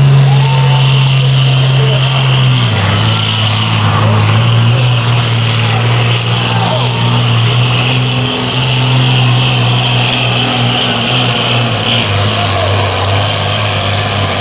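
A John Deere pulling tractor's diesel engine running hard under load as it drags the pulling sled. The engine note is loud and steady with a high whine over it, and it drops in pitch a couple of times as the tractor slows.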